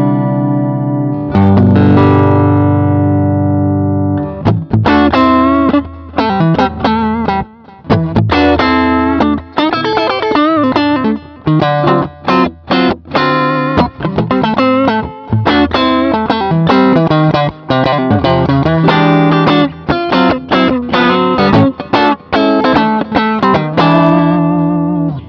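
Harley Benton Telecaster-kit electric guitar played through its pickups for a sound test: two chords left ringing, then from about four seconds in a quick picked riff with many short, stopped notes, ending abruptly at the close.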